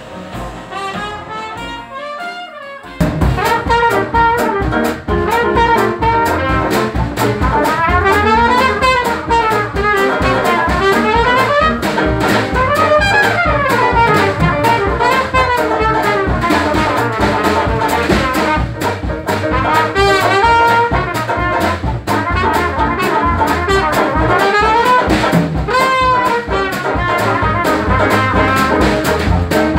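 Traditional New Orleans jazz band playing live: a muted trumpet carries the melody over saxophone, piano, banjo, bass and drums with a steady beat. The opening seconds are quieter, and the full band comes in loudly about three seconds in.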